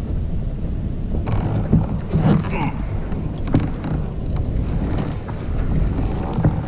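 Steady wind rumble on the microphone, with a run of clicks and creaks from a baitcasting rod and reel and kayak gear being handled, starting about a second in.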